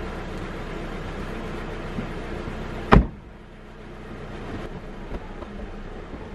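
A car door slams shut about three seconds in. The electric mechanism of the car's retractable hardtop then starts running, with a few small clicks, as the roof begins to fold open.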